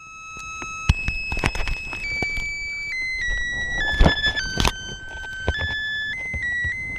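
Small R/C flying wing's electric motor whining, its pitch jumping in small steps, mostly downward, as the throttle changes, with knocks and bumps from handling the airframe, loudest about a second in and about four seconds in.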